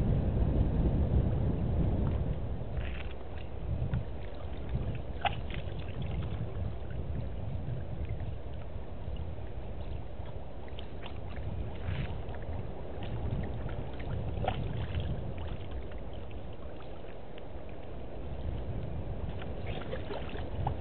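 Water sloshing and lapping around an African elephant wading and drinking at a waterhole, over a steady low rumble, with a few small drips and splashes scattered through. The rumble is louder for the first two seconds.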